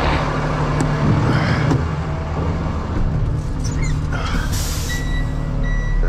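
Concrete mixer truck's diesel engine idling steadily. About four and a half seconds in there is a brief hiss, and from about five seconds in a repeated electronic beep.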